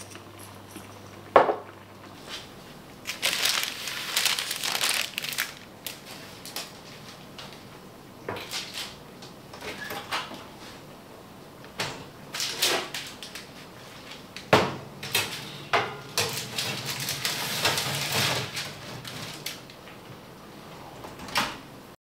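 Kitchen handling sounds at the cooker: a spice jar shaken over a frying pan, then scattered clinks, knocks and scrapes of cookware, with sharp clunks about two thirds of the way through.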